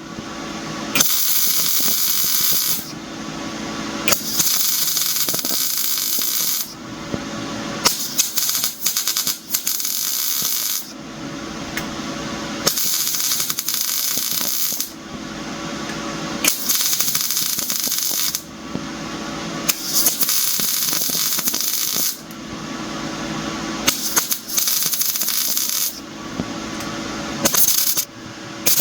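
Arc welding on thin steel bed-frame tubing, laid down in short crackling bursts of about two seconds with brief pauses between, eight or so in all, over a steady hum from the welder. Short stitch welds to keep from burning holes through the thin metal.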